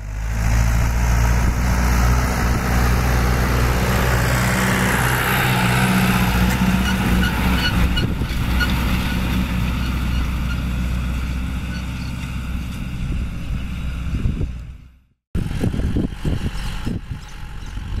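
John Deere 2850 tractor's diesel engine running steadily under load as it pulls an offset disc harrow close past. About 15 s in the sound cuts off suddenly, and after that the tractor is fainter, with wind buffeting the microphone.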